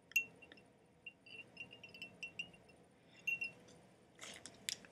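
Faint handling sounds of fly-tying materials being picked up on the bench: scattered soft clicks and short high ticks, then a brief rustle about four seconds in.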